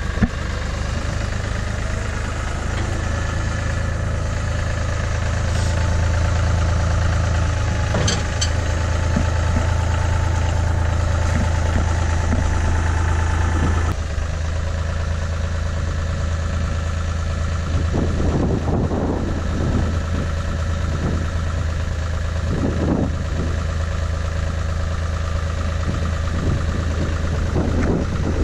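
John Deere loader tractor's engine running steadily with a low hum. In the second half, a few short, harsher noises rise over it as the loader shoves the limo.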